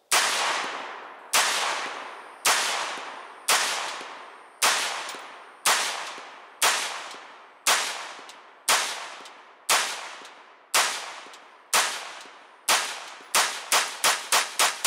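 AR-15 semi-automatic rifle fitted with a muzzle brake firing 5.56 NATO rounds: single shots about one a second, then a quicker string of five near the end, each shot followed by a long echo.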